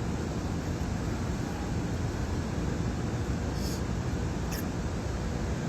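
Steady low rumbling background noise with no clear source, and a couple of faint brief clicks around four seconds in.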